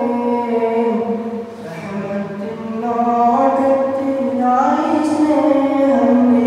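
A man singing a Malayalam memorial song solo and unaccompanied into a microphone, holding long, sliding notes in a chant-like style, with a short breath pause about a second and a half in.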